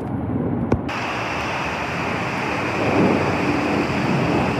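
A jet airliner flying overhead: its engine noise is a steady, even roar. It cuts in abruptly about a second in, replacing a quieter aircraft recording that has a sharp click just before the change.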